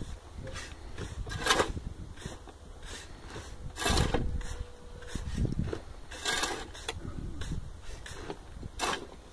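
A long-handled shovel scraping into loose dry soil and stones and throwing it aside, with about four main strokes, each a short gritty scrape.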